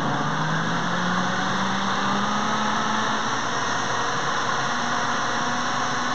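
Pampered Chef Deluxe Cooking Blender running its smoothie program, the motor blending fresh fruit, yogurt and juice in the smoothie cup attachment. The motor pitch rises over the first few seconds, then holds steady.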